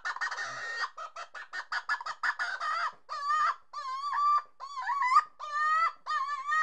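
Domestic fowl calling: a quick run of short clucking notes, then from about halfway on longer wavering calls at roughly two a second.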